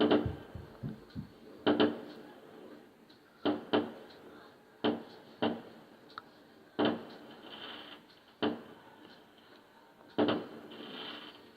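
Fireworks going off, about nine separate bangs at uneven intervals, each dying away with an echo, some followed by a short crackle.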